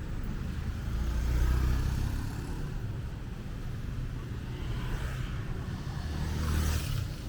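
Street traffic: motor vehicles passing close by, with one swelling up and fading about a second in and another passing near the end.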